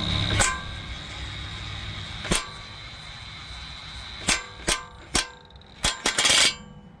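Sharp metallic knocks and clicks of a hand tool on a car's front strut mount, about eight irregular strikes with a short ringing after each, bunched together near the end, as the strut's lower end is worked into place.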